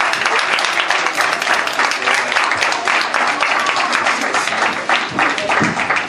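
Crowd applauding and clapping, with voices mixed in.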